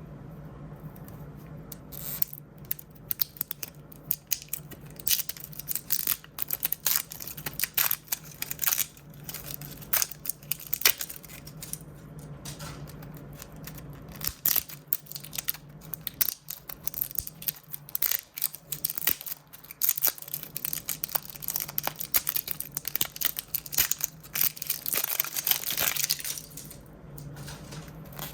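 Blind-bag packaging being torn open and crinkled by hand: a dense run of crackling rips and rustles that starts about two seconds in and stops shortly before the end.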